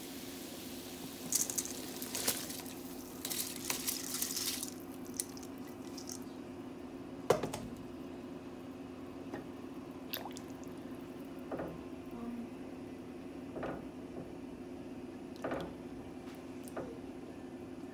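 Rice poured into a metal pot of boiling water for cumin (jeera) rice, splashing and hissing for a few seconds soon after the start, over a steady low hum. The rice is then stirred with a spatula that knocks against the pot about six times, the sharpest knock early in the stirring.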